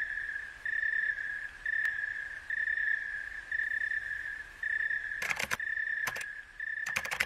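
Cricket chirping in short trills at a steady high pitch, about once a second. Near the end come a few quick clusters of laptop keyboard keystrokes.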